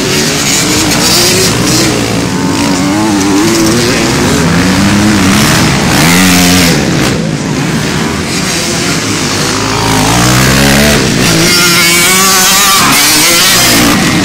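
Several motocross bikes racing, their engines revving up and falling back again and again as they accelerate and shift through the track.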